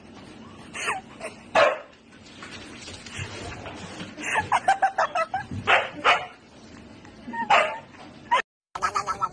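A dog barking and yipping in short, separate calls, with a quick run of high yips around the middle. Near the end the sound cuts out briefly and a new series of short pulsed sounds starts.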